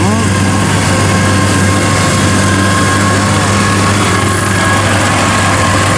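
Engine of a homemade tracked rice carrier, built on a Kubota DC70 combine's undercarriage and tracks, running steadily as it drives loaded across a harvested field, with a constant low hum.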